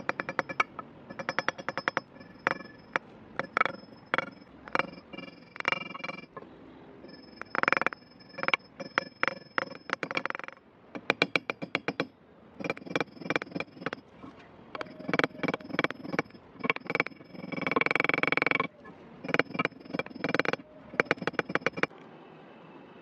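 Small hammer tapping in quick bursts, peening brass pins into the wooden handle scales of a meat cleaver resting on a steel block; each tap rings with a light metallic tone.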